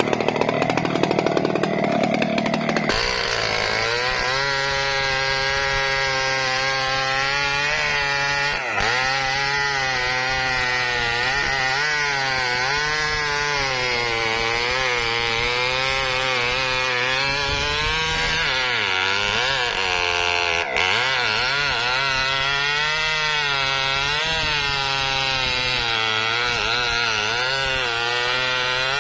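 Chainsaw cutting mahogany wood, the engine running steadily under load. Its pitch wavers up and down as the cut drags on the chain and lets it recover. The first few seconds are rougher and louder before the steady cutting note settles in.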